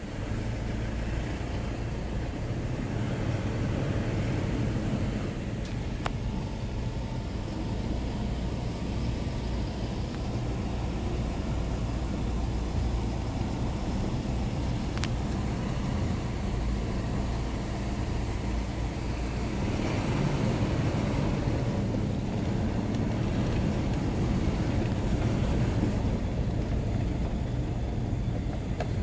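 Steady low rumble of a Mitsubishi Pajero's engine and its tyres on brick paving, heard from inside the cabin while driving.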